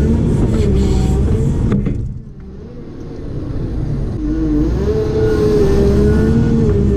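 Heavy diesel digging machine running, with a deep rumble and a wavering whine. About two seconds in the sound drops away sharply, then builds back up over the next two seconds.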